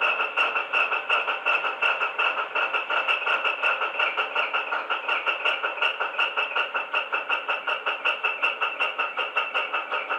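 Digital sound recording of a Paxman VP185 diesel engine idling, played back from a model HST's DCC sound decoder through its small built-in speaker. It gives a steady, rapid, even pulsing beat that sounds thin, with no deep bass.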